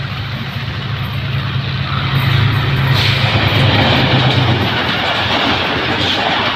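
Diesel locomotive of a passenger express approaching and passing close at speed: its engine drone grows louder to a peak about three to four seconds in. The rush and rattle of the passenger coaches rolling by takes over after that.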